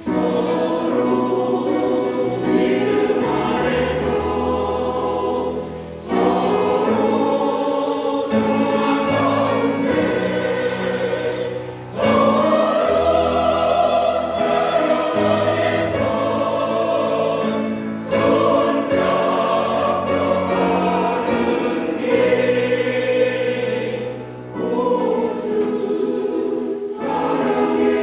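Choir singing a Christian hymn over steady low accompaniment, in sustained phrases with short breaks about every six seconds.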